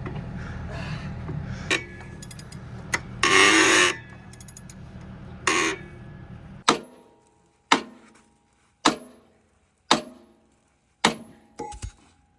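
A heavy machine's engine runs with a steady low rumble, with a few clanks and two short loud noisy bursts over it. The rumble cuts off suddenly, and five sharp hammer blows on steel follow about a second apart, each ringing briefly, then two light metallic clicks.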